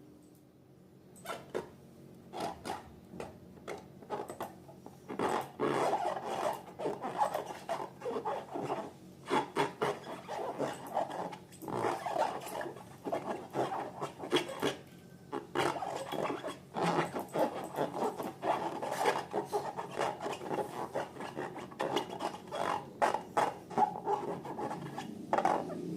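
Slime being mixed and squished, giving dense, irregular sticky squelching and crackling that starts about a second in.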